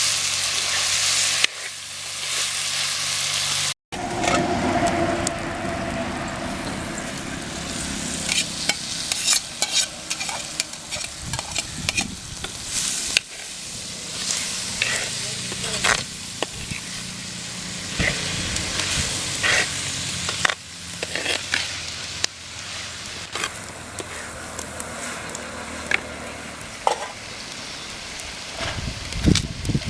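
Onion, garlic and spices sizzling in hot oil in a pan, stirred with a ladle that scrapes and clicks against the pan now and then. The sound breaks off for a moment about four seconds in.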